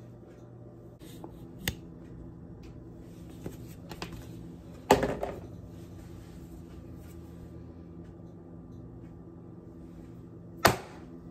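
A few sharp knocks on a plastic cutting board over a steady hum. The loudest comes near the end as a large kitchen knife chops down through sausages onto the board.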